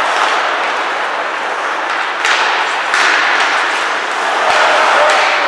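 Ice hockey game sound: a steady haze of rink noise from skating and spectators, broken by sharp knocks of sticks and puck, two clear ones about two and three seconds in.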